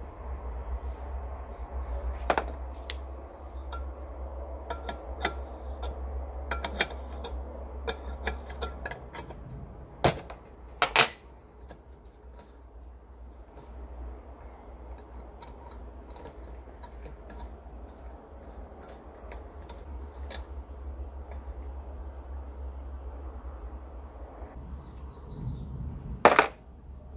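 Small metal clinks and taps as the lamp's brass fittings and tools are handled against its metal tank, with two sharper knocks about ten seconds in and a loud clank near the end. A steady low hum runs underneath.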